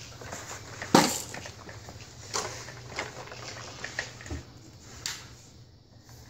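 Scattered sharp knocks and clacks from a baby's activity jumper and its plastic tray toys as the baby moves and bounces in it, the loudest about a second in, over a low steady hum.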